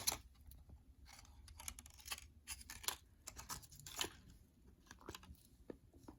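Small items being handled: scattered light clicks and rustles of plastic, as a small plastic case and the things around it are picked up and turned over.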